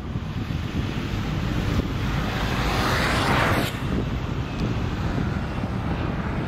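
Wind buffeting the microphone, with a rushing hiss that swells about two seconds in and drops away just before four seconds.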